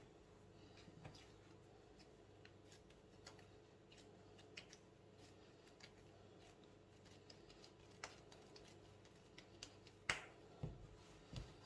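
Near silence with faint, scattered small clicks and soft handling noises from hands working manty dough. A sharper click comes about ten seconds in, followed by a few low thumps near the end.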